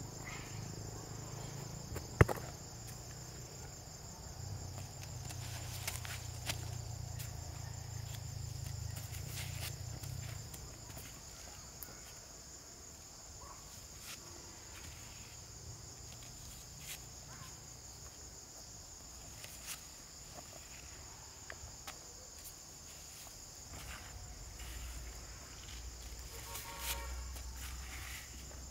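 Steady high-pitched chorus of insects, with scattered small clicks and rustles from gloved hands working soil into holes in plastic mulch, and one sharp knock about two seconds in. A low hum runs under the first ten seconds or so.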